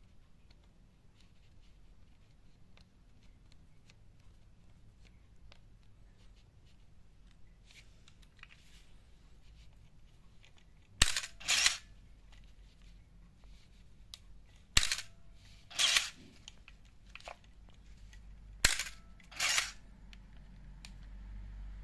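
Canon AE-1 Program SLR with a Canon Motor Drive MA fired three times, about four seconds apart: each time a sharp shutter-and-mirror click, then within about a second a short burst of the motor drive winding the film on.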